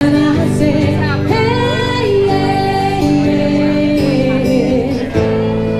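A woman singing a song into a microphone while accompanying herself on acoustic guitar.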